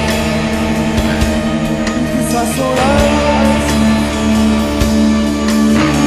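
Live Japanese progressive rock trio of electric guitar, bass guitar and drum kit playing a loud, dense passage of sustained tones over drumming, with a note bending in pitch about halfway through.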